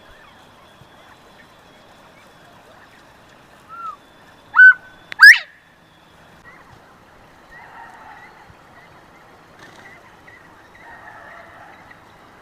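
Northern bobwhite quail giving its bob-white whistle once: a faint short note, a short clear whistle, then a loud whistle that sweeps sharply upward, about four to five seconds in.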